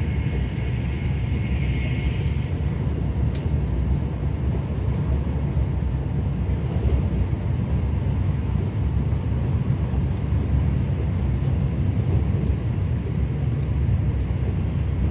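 Steady low rumble of a CRH1A-A high-speed electric multiple unit running at speed, heard from inside the passenger cabin.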